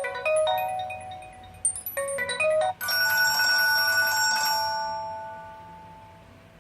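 HTC Desire 601 ringtone playing: a quick run of bell-like notes, a short break, another quick run, then a held chord that rings out and slowly fades away.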